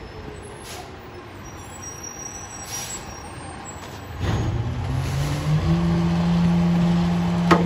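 Mack Granite garbage truck with a Leach rear-loader body, idling with two short hisses of air, then about four seconds in its engine speeds up with a rising tone and holds a steady fast idle, the way a rear loader runs up its engine to drive the packer hydraulics. A sharp click near the end.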